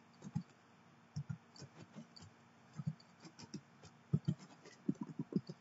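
Computer keyboard being typed on: short, irregular soft key taps, coming in a quicker run near the end.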